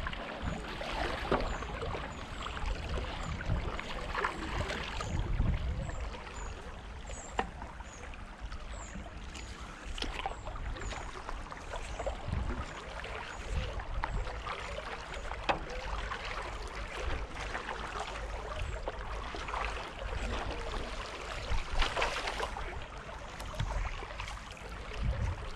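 A paddle dipping and pulling through calm canal water on a stand-up paddleboard, with irregular splashes and drips from the strokes.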